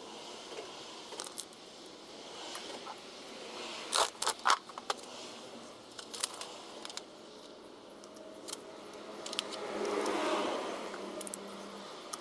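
Clinks, scrapes and sharp knocks of small hard objects being handled, with a cluster of loud knocks about four seconds in and a longer scraping rustle near the end.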